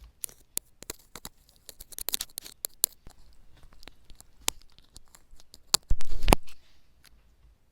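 An irregular run of sharp clicks and taps close to the microphone, with faint crackling between them and a louder burst about six seconds in.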